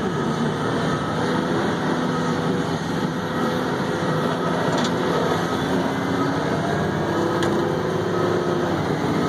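Haul truck's diesel engine and drivetrain running while the truck drives across rough ground, heard from inside the cab: a steady drone with engine tones that drift a little in pitch.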